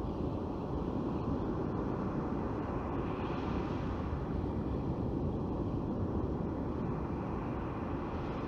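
Surf breaking and washing up a sandy beach: a steady rushing wash of waves.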